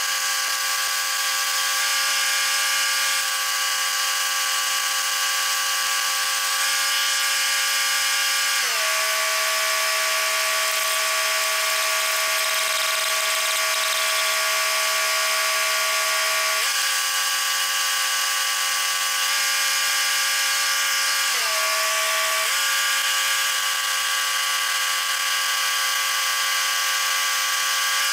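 Engine-driven welding machine running steadily, its pitch sagging under load for several seconds around a third of the way in and briefly again later, with the hiss and crackle of stick welding.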